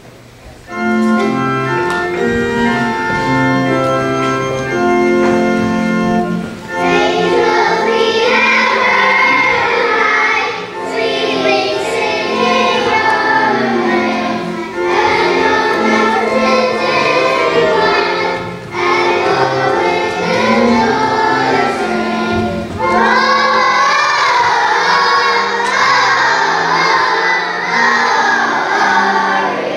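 Children's choir singing a song with instrumental accompaniment. Held instrumental notes play alone for about the first six seconds, then the voices come in and sing in phrases with short breaths between them.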